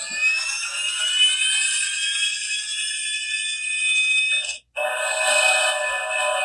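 Built-in electronic start-up sound effect from the light-up Trunks time-machine statue base, played through its small speaker. A rising whine of several tones climbs for about four and a half seconds and cuts off suddenly. After a short gap, a steady electronic drone of several held tones comes in.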